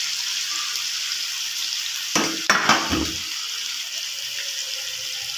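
Sizzling in a steel cooking pot as chopped parwal (pointed gourd) are tipped into it, with a few knocks and clatters of steel against the pot about two seconds in.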